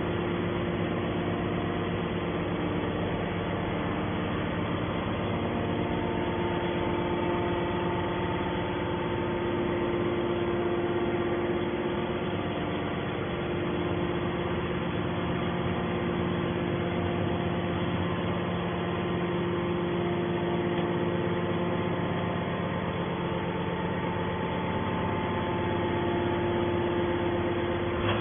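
Hydraulic metal shavings baler running steadily: a continuous machine hum with several steady tones and no strokes or impacts.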